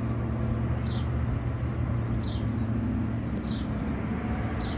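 Engine idling with a steady low hum, with a short, high, falling chirp repeating about every second and a quarter.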